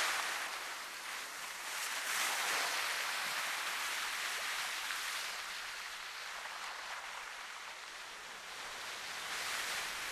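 Sea waves washing in and drawing back, the surf swelling and easing every few seconds in an uneven rhythm.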